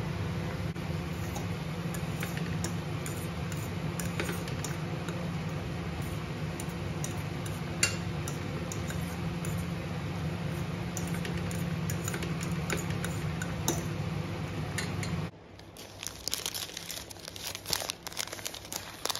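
A steady low mechanical hum with a few light clicks and clinks over it. About fifteen seconds in it stops abruptly, giving way to quieter, busy crinkling and rustling of plastic or paper wrapping.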